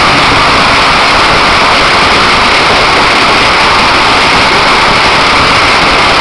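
A string of firecrackers going off in a rapid, unbroken run of bangs so close together that they blur into one loud continuous crackle.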